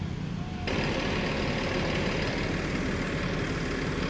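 Low hum of an idling bus engine. Less than a second in, it switches abruptly to a louder, steady rushing noise with engine rumble underneath.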